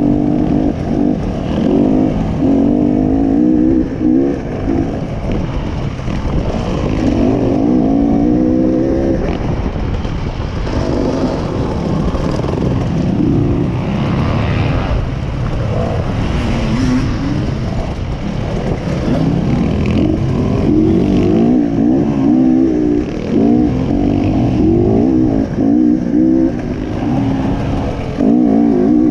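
Enduro motorcycle engine being ridden on a dirt track, its pitch repeatedly rising and falling as the throttle is opened and closed through the gears, over a constant low rumble.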